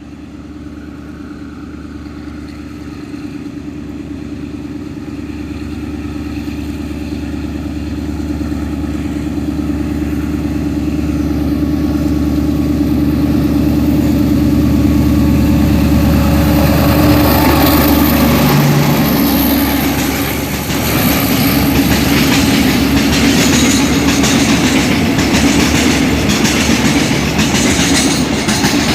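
Diesel-hauled train approaching and passing: a steady engine note grows louder over the first half, the low engine sound drops away about two-thirds through, and a dense rattle of train wheels over the rails follows.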